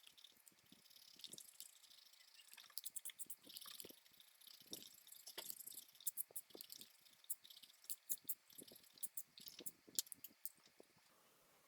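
Faint eraser rubbing on paper in short, irregular strokes with light scratchy clicks, erasing the pencil sketch lines from under a dried ink drawing.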